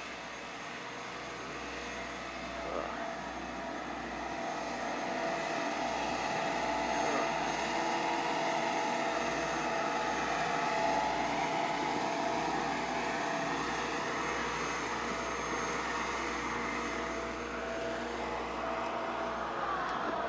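Double-drum asphalt roller's diesel engine running steadily with a droning hum, growing louder over the first several seconds and easing slightly later.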